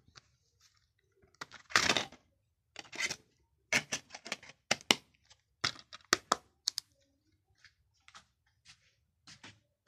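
A plastic DVD case being handled and opened, with a quick run of sharp plastic clicks and snaps and one longer scraping rustle about two seconds in. A disc is pressed off its centre hub. The clicks thin out and grow softer after about seven seconds.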